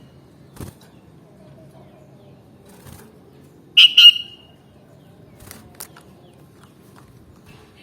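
Sooty-headed bulbul giving a loud, short double call about four seconds in, over a faint low background hum, with a few faint clicks.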